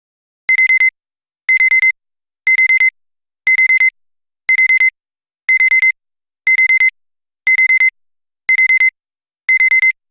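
Digital timer alarm going off to signal that time is up: groups of four quick, high-pitched beeps repeating about once a second, starting about half a second in.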